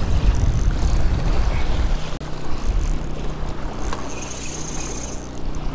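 Low wind rumble on the microphone and water washing against the jetty rocks, with a small engine's steady hum coming through underneath after about two seconds.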